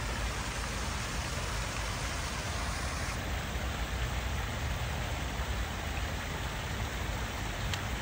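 Waterfall: falling water rushing in a steady, even hiss.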